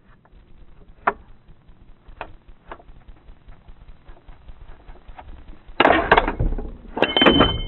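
AR-15 pistol test-fired with a bolt carrier group that fails to cycle. A few light clicks of handling, then a loud shot about six seconds in. About a second later comes a second loud metallic clatter with a short ringing tone, as the action is worked by hand to clear the spent case.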